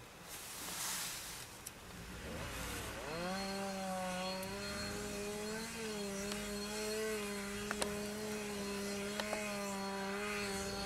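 Two-stroke chainsaw starting up, its pitch climbing for about a second, then held at steady high revs with small dips, cutting through the sea ice around a frozen-in boat.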